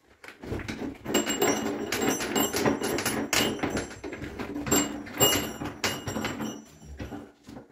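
Rubber-gloved hands twisting a conventional chrome cross-head shower tap off the wall: a dense run of metal scrapes and clicks with brief high squeaks.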